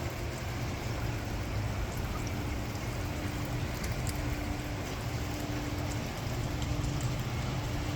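Heavy thunderstorm rain falling steadily, with scattered drip and splash ticks. A faint low tone repeats about once a second beneath it.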